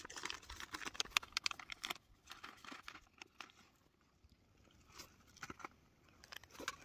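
Crinkling and rustling of a foil-lined freeze-dried meal pouch being opened and handled, a dense run of crackles for about two seconds, then quieter with scattered light crackles.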